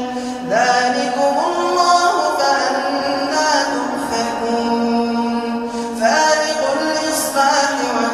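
A man reciting the Quran aloud in melodic tajweed chant, holding long drawn-out notes with ornamented turns. A new phrase opens with a rising swoop about half a second in and again about six seconds in.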